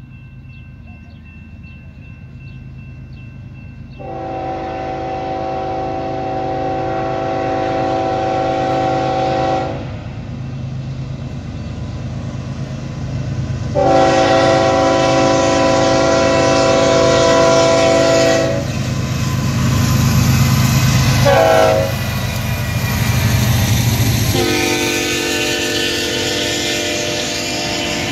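Union Pacific GE C45AH (ES44AC) diesel locomotive sounding its multi-note air horn in the grade-crossing pattern: long, long, short, long. The locomotives' diesel engines run underneath, growing louder as they approach. The horn's pitch drops during the short blast as the lead unit passes.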